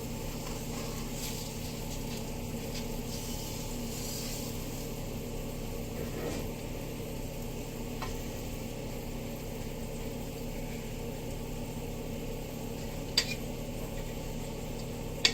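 Food sizzling steadily in a frying pan, with two sharp clicks of a utensil or lid against the pan near the end.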